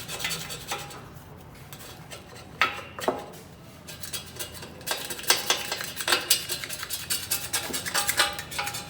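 Hand work on a bare alloy bike frame being stripped and sanded: irregular clinks and scrapes of hard objects against the metal. They come thickest in the second half.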